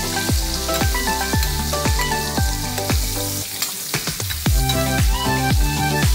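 Kingfish steaks sizzling in sauce in a stainless steel frying pan as the sauce is spooned over them. Underneath runs background electronic music with a steady beat, which drops out for about a second around the middle.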